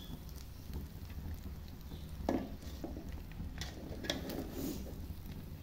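A spatula stirring cooked biryani rice in a steel pot: soft rustling of the rice with a few knocks and scrapes of the spatula against the pot, the loudest about two seconds in. A low steady hum runs underneath.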